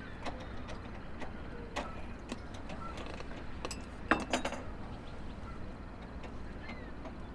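Metal spoon and glassware clinking: scattered light clicks as a spoon works in a glass smoothie jar, with a cluster of sharper clinks about four seconds in as glass is handled and set down.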